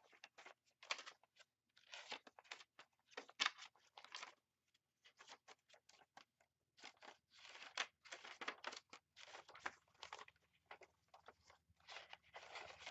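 Collaged paper pages of a handmade junk journal rustling and crinkling as they are leafed through and handled, in many quick, irregular crackles.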